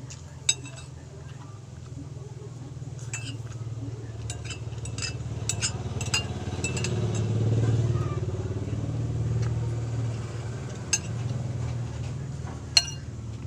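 Metal cutlery clinking against a plate a dozen or so times while eating, each clink ringing briefly. Under it runs a low engine rumble from a passing vehicle, the loudest sound, swelling to a peak about halfway through and then fading.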